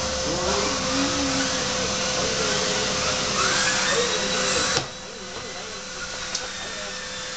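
Canister vacuum cleaner running with a steady motor whine. Its loud suction hiss drops sharply about five seconds in while the motor keeps running. Wavering vocal sounds ride over it.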